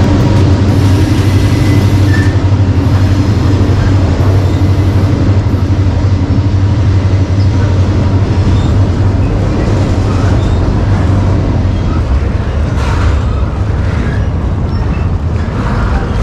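Intermodal freight train crossing the FEC Strauss Trunnion bascule bridge overhead, heard from directly beneath its riveted steel deck: a steady, loud, deep rumble of wheels on the steel bridge.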